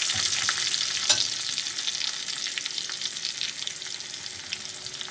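Garlic, cumin seeds and dried red chili sizzling and crackling in hot oil for a tadka (tempering), dying down steadily as the pan cools with the gas off. A single sharper knock comes about a second in.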